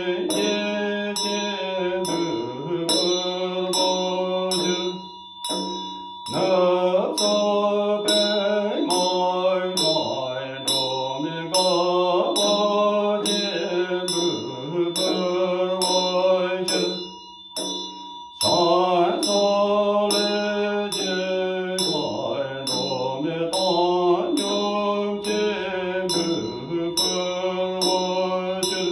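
Male voice chanting the chöd liturgy in a slow, melodic chant, with a chöd damaru (double-headed hand drum) twirled in a steady beat of about two strikes a second. The chant breaks off briefly twice.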